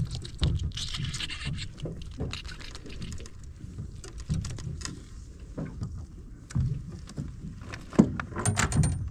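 Irregular knocks, rattles and scrapes of gear being handled in a small fishing boat, with a cluster of sharp clicks near the end.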